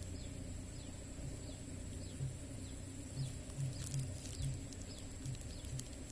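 Outdoor ambience with faint bird chirps over a steady high-pitched drone, with soft low pulses about twice a second starting about two seconds in and a few light clicks in the middle.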